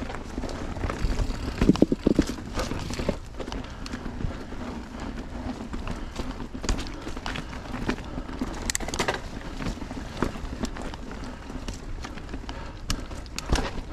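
Mountain bike ridden over a rough dirt trail: a steady tyre rumble with frequent sharp clicks and rattles as the bike jolts over the ground.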